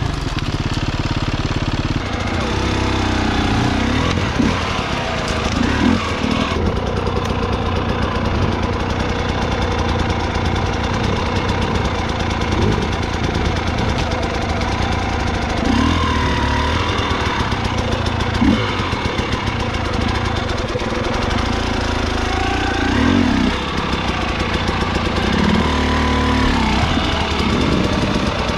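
Vehicle engine running with a rapid, even firing pulse, its speed rising and falling a few times.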